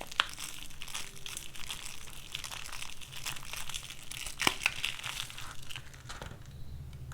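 Soap-bar packaging being unwrapped by hand: the wrapper crinkling and crackling, with two sharper snaps, before the crinkling dies away near the end.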